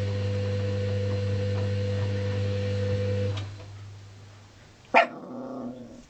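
Washing machine motor humming steadily, then falling quiet about three seconds in. About a second and a half later, a Chihuahua gives one sharp bark with a short growling tail.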